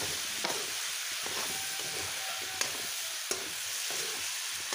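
Meat and potato pieces sizzling in a wok while a metal spoon stirs them, scraping and clinking against the pan at irregular intervals.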